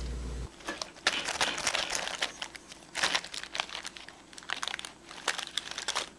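Baking parchment crinkling and rustling as a sponge cake is turned out of its round pan onto a wire cooling rack. It comes in irregular crackly bursts with a few sharper knocks.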